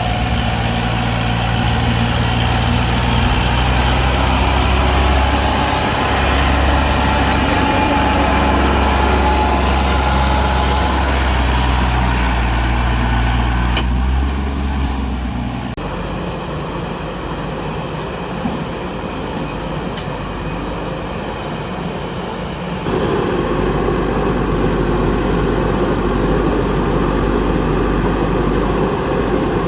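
Heavy diesel engines of a backhoe loader and tractors running steadily during soil loading. The sound drops and changes character about halfway through, then grows louder again some seconds later.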